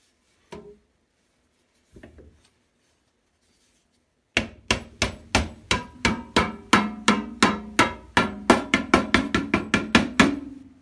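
Metal lid of a gallon can of carburetor parts cleaner being struck down onto the can. A run of about thirty sharp, ringing metal strikes that quicken as they go.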